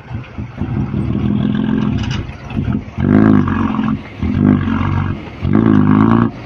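Bogged-down truck's diesel engine running under load, then revved hard in three short surges in the second half as the stuck truck tries to drive out of deep mud.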